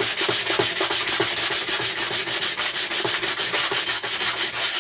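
Sandpaper sanding the edge of a 3D-printed plastic part in quick back-and-forth strokes, about eight a second, trimming a first layer that spread out too wide on the build plate.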